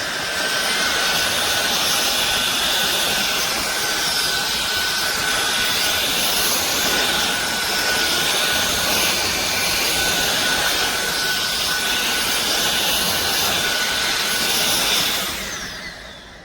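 SunSare cordless stick vacuum cleaner running steadily with a high whine, then switched off near the end, its motor winding down.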